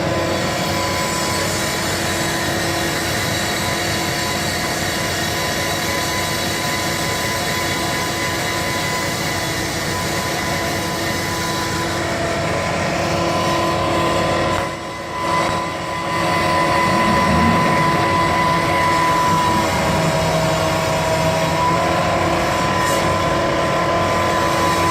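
Steady mechanical running noise with a constant high whine and lower hum, dipping briefly about fifteen seconds in.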